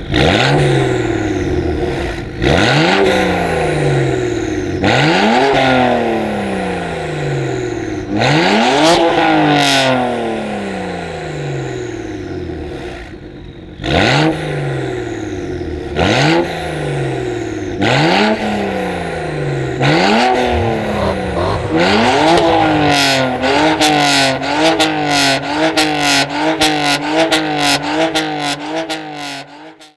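BMW 335i E92's turbocharged straight-six with a catless exhaust being revved: a series of sharp revs, each rising quickly and falling away slowly. For the last several seconds the revs are held high and bounce up and down rapidly.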